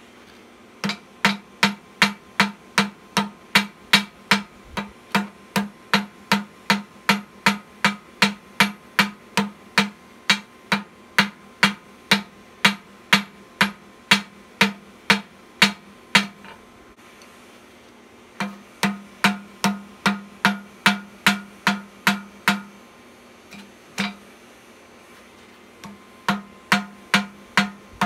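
Blacksmith's hammer striking a hot thin steel bar on an anvil, steady blows about three a second, each with a short ring from the anvil, drawing the bar out long and narrow. The hammering stops twice for a couple of seconds in the second half and then resumes.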